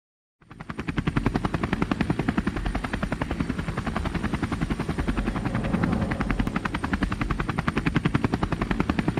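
Sound effect of an aircraft's spinning propeller: a rapid, even chopping pulse that fades in just after the start and holds steady.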